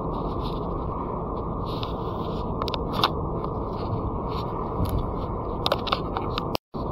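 Car driving along a main road, heard from inside the cabin: steady road and tyre noise with a few light ticks and rattles. The sound cuts out for a moment near the end.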